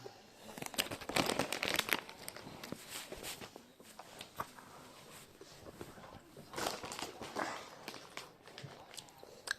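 Crisp packet crinkling as it is handled, in two main bursts, about a second in and again around seven seconds in, with scattered sharp clicks between.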